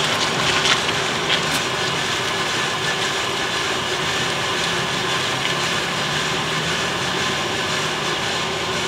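Bideli 2KG propane-fired drum coffee roaster running steadily mid-roast, before first crack: an even, loud rush of its air fan and gas burner with a low hum from the turning drum.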